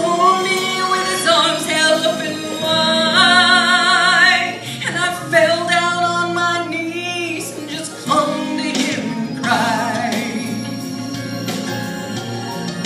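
Female soloist singing a gospel song through a microphone, with long held notes and wide vibrato, over musical accompaniment.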